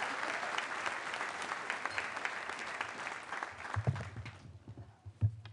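Audience applauding, dying away about four and a half seconds in, with a few low thumps near the end.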